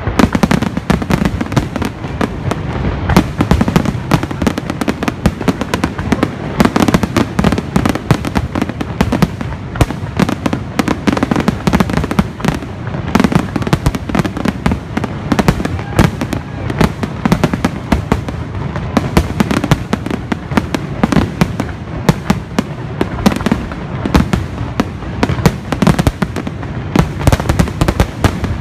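Fireworks finale: aerial shells bursting in a dense, continuous barrage of bangs, many a second, without a let-up.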